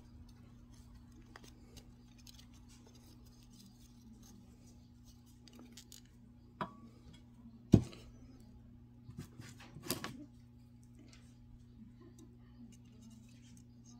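Small clicks and scrapes of coated wire being threaded through a clay pot and twisted with long-nose pliers, with one sharp click about eight seconds in and a few more soon after. A steady low hum runs underneath.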